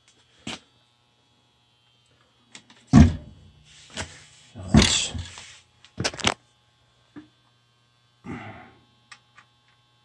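A faint steady low electrical hum, broken by a few short knocks and clunks of handling near the boiler's burner door. The loudest comes about three seconds in.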